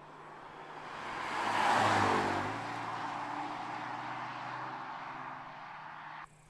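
BMW M4 Convertible's twin-turbo straight-six passing at speed. Engine and tyre noise swell to a peak about two seconds in, then the engine note drops in pitch and fades as the car pulls away. The sound cuts off abruptly near the end.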